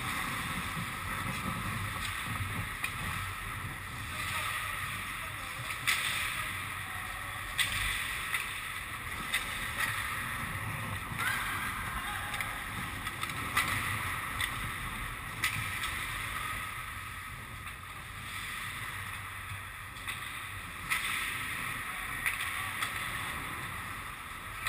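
Ice hockey play: skates scraping and gliding on the ice, with sharp clacks of sticks and puck now and then.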